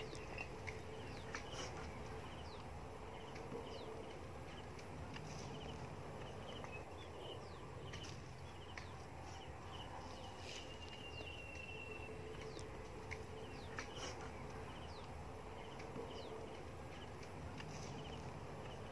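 Faint rural outdoor ambience: small birds chirping now and then over a steady background hiss, with a few light taps.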